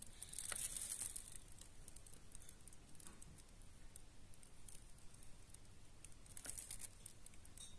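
Faint crackling fizz of foaming degreaser on a greasy range-hood motor bearing bracket, its bubbles popping as it dissolves the built-up grease; strongest in the first second and again about six and a half seconds in.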